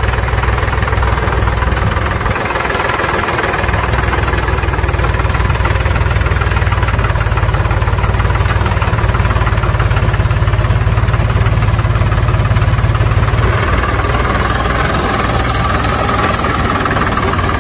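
Tractor engine running steadily at a low idle, changing a little near the end.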